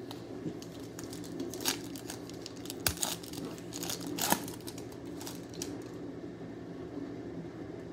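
Baseball card pack wrappers being torn open and crinkled: a handful of sharp crinkles and rips bunched in the first half, then only quieter handling.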